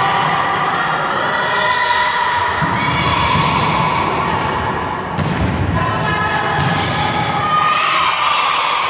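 Volleyball rally in a large sports hall: several sharp thuds as the ball is struck, with raised voices calling out over them.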